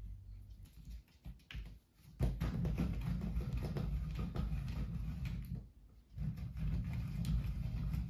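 Hands fitting and tightening the pan head of a camera tripod: rapid plastic clicks and rattles with dull handling thumps. They come in two busy stretches, starting about two seconds in, with a brief pause around six seconds.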